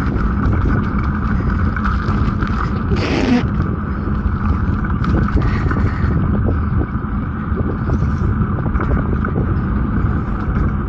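Steady loud rumble and rushing noise of a bike ride, picked up by the camera's microphone.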